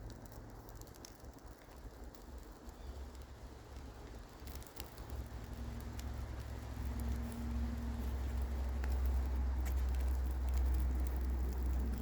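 Rain pattering steadily, with scattered small drop clicks. A low rumble swells over the second half and stays loud.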